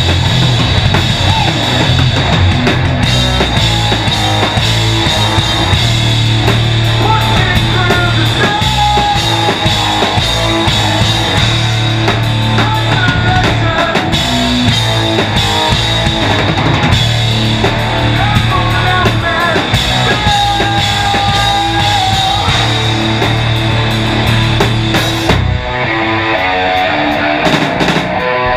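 Metal band playing live: drum kit with crashing cymbals over electric guitars and bass. Near the end the drums drop out and the guitars carry on alone.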